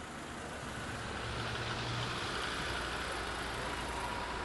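Road traffic passing close by: car engines humming with tyre noise on the road, building in loudness over the first couple of seconds.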